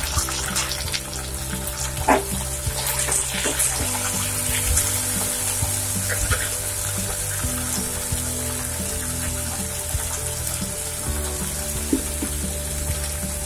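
Chopped shallots, garlic and tomatoes sizzling in hot oil in a steel pan, with a few sharp clicks of a spoon stirring against the pan about two and three and a half seconds in. Background music with sustained low chords runs underneath.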